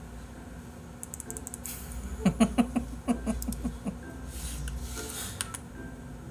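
A man laughing in a quick run of about eight short pulses, after a few sharp clicks.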